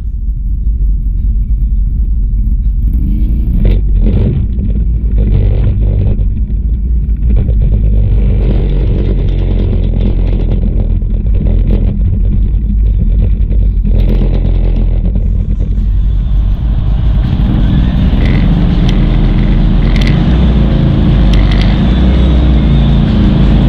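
ATV engines running as the quads ride a rough dirt trail, with scattered knocks and rattles over the bumps. A rushing noise grows over the engine about two-thirds of the way through.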